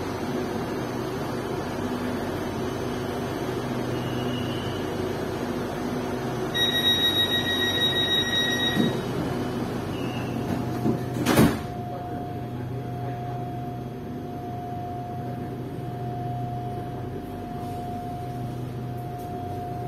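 Inside an SRT Red Line electric train standing at a station: the cabin hums steadily, a door-warning chime beeps for about two seconds, and the sliding doors shut with a single loud thud about halfway through. A steady tone follows once the doors are closed.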